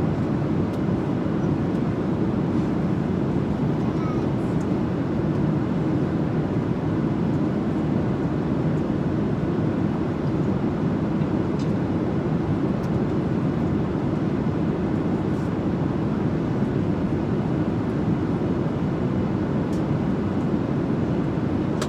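Steady cabin noise of an airliner, heard from inside the passenger cabin: an even, low rumble of engines and airflow that holds constant.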